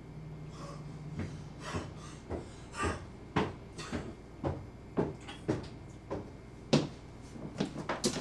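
Footsteps: a run of hard, even thumps about two a second.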